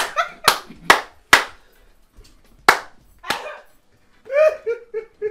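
Five sharp smacks, spread unevenly over the first three and a half seconds, then a short burst of laughter near the end.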